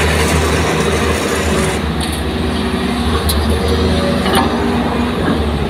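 Kobelco SK200 excavator's diesel engine running steadily under load as the machine swings a full bucket of soil over to a dump truck, with a few short sharp knocks about two, three and four seconds in.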